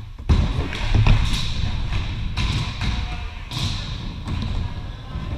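Skateboards rolling on skatepark ramps, with a rumble from the wheels and several sharp board thuds and knocks.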